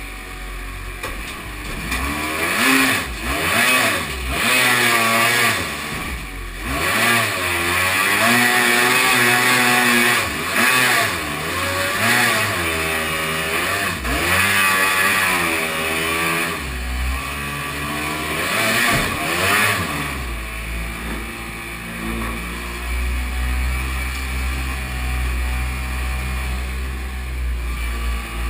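Kawasaki 750 two-stroke jet-ski engine of a jet boat, revving up and down again and again as the boat works up through rapids, over a steady rush of water. About two thirds of the way through, the revs settle into a steadier drone.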